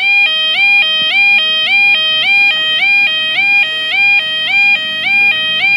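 UK level crossing warning alarm sounding: a loud electronic two-tone yodel that steps up and down about two and a half times a second, warning that a train is approaching and the barriers are about to come down.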